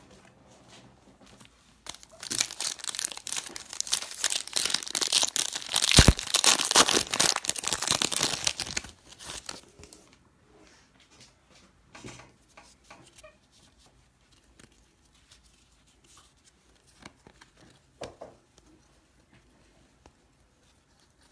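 Trading-card pack wrapper being torn open and crinkled, loudest for several seconds from about two seconds in, then fainter rustling.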